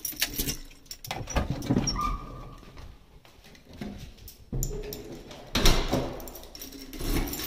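A flat's front door being opened and shut: scattered clicks and knocks, a brief squeak about two seconds in, and the loudest knocks a little past halfway, mixed with footsteps and handling noise.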